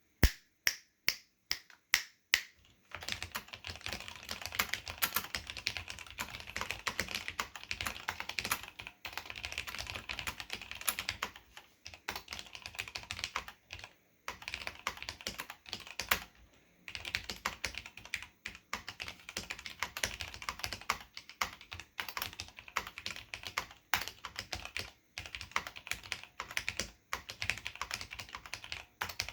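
Typing on a Desko BMOC 4013 UP SAB mechanical keyboard with linear Cherry MX Black switches and ABS keycaps. It opens with about eight separate, loud keystrokes, then turns into fast continuous typing with a few short pauses.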